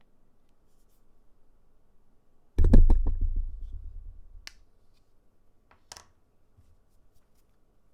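A sudden heavy thump with a quick rattle of clicks, dying away over about a second and a half, then two single sharp clicks a second and a half apart: handling noise of items on a desk.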